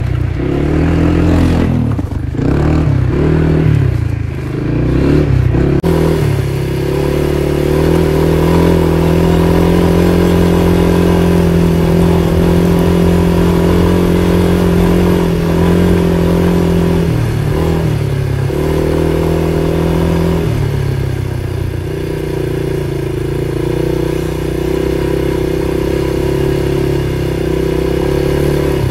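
Motor running with a steady, pitched hum of several tones that shifts up or down in pitch a few times. It is choppier and unsteady for the first few seconds.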